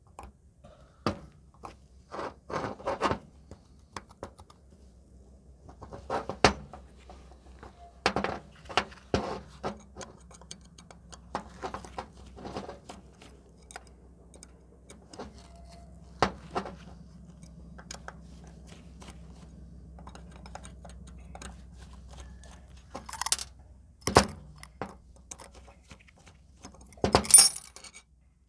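Hand work on a two-stroke scooter's reed valve block on a metal bench: a blade scraping off old gasket, then a screwdriver clicking as the small screws of the reed stopper plate come out, and small metal parts clinking as they are set down. The sounds come as scattered short clicks and scrapes, with a louder clatter near the end.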